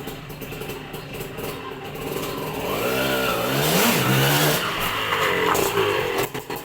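Kawasaki KE125 two-stroke single-cylinder engine running at idle, revved up once about halfway through and let fall back to idle.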